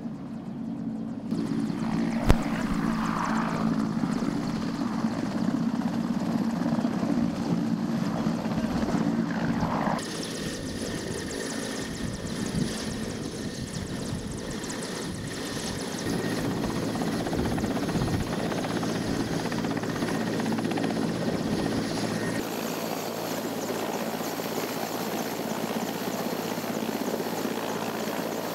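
Mil Mi-17 helicopter's twin turbine engines and main rotor running: a steady high turbine whine over a dense low drone. The mix shifts abruptly a few times, and there is one sharp click about two seconds in.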